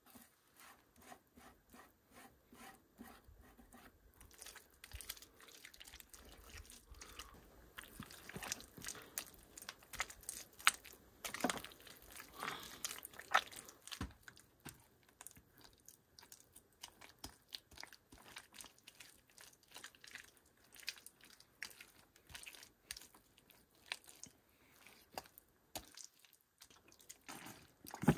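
Hands kneading and squeezing thick wet mud: irregular squelches and wet slaps, busiest and loudest in the middle.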